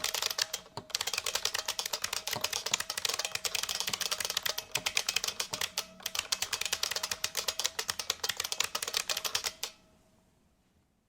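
Fast typing on an IBM Model F XT keyboard's capacitive buckling spring switches: a dense run of sharp clicks, with brief pauses just under a second in and near the middle. The typing stops about a second and a half before the end.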